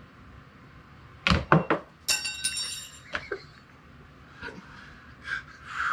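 A metal fork dropped onto a hard floor: a quick cluster of knocks, then a brief bright metallic ring and clink as it settles, with one more small click after.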